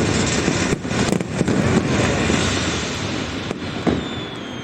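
Fireworks display: a dense crackling roar broken by several sharp bangs of bursting shells, with a thin whistle falling slowly in pitch near the end.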